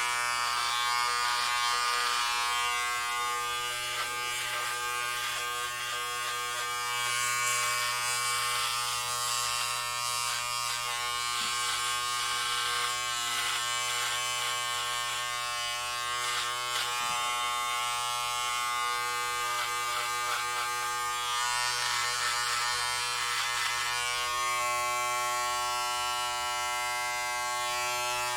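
Electric hair clippers buzzing steadily while cutting hair, the motor's hum constant and the rasp of the blades through the hair rising and falling as they move.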